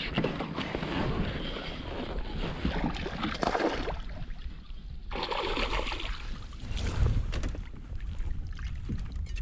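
Water and handling noise from a kayak while a hooked bass is fought on rod and reel, with wind buffeting the microphone in uneven gusts.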